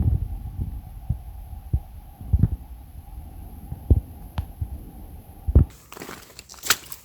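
Low, muffled thuds at uneven intervals over a faint steady hum. Near the end this gives way to crisp crunching footsteps on dry leaves and twigs.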